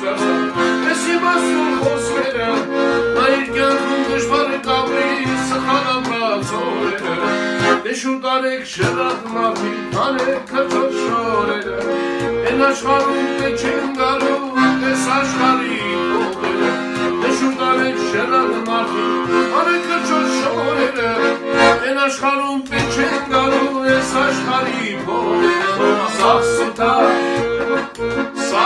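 Accordion playing an instrumental tune: a melody over held chords and a regular pulsing bass, with brief thinning of the sound about eight and a half and twenty-two seconds in.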